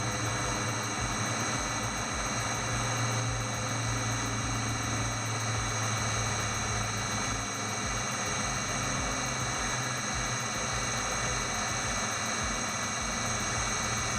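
Kokusan top-discharge centrifuge running at steady speed: a steady low motor hum with several steady high whining tones above it.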